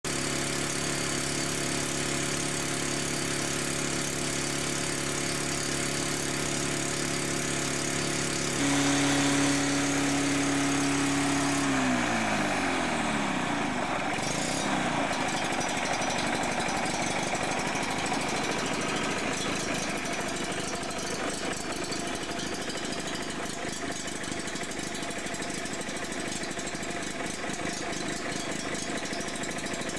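Sachs KM3 110 cc Wankel rotary engine of a Wolf rotary lawnmower running steadily. About a third of the way in its note steps up higher and louder for a few seconds, then slides down and settles at a lower, less even speed.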